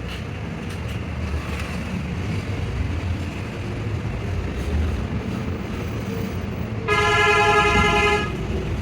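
Steady background traffic noise with a low rumble, and one vehicle horn blast lasting about a second and a half near the end.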